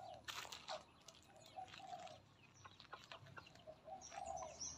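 Faint clucking of chickens in short repeated notes and small birds chirping high near the end. There are a few crunching footsteps on gravel about half a second in.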